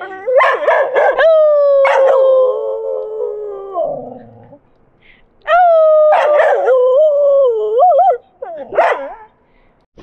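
A dog howling: two long howls of a few seconds each, slowly falling in pitch, each starting with short yelps, the second wavering near its end and followed by a brief yip.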